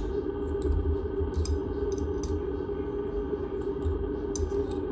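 Light metallic clicks and taps of stainless steel cone discs from a Vevor cream separator bowl as they are set down and stacked one on another onto the disc holder, over a steady background hum.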